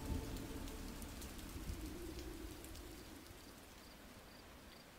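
Steady rain ambience with scattered drop ticks, fading gradually lower. Past the middle, faint high cricket chirps come in, about two a second.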